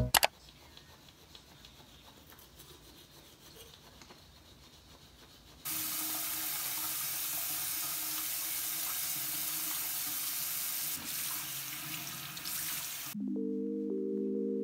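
Bathroom sink tap running water into the basin for about seven seconds, starting suddenly after a quiet stretch and cutting off abruptly. Soft music with mallet-keyboard tones comes in just after it stops.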